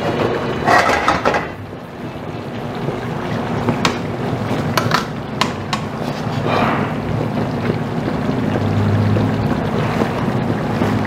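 Metal tongs clicking and scraping against an aluminium pan a few times as chicken pieces are lifted from simmering adobo sauce and drained, over a steady low rumble.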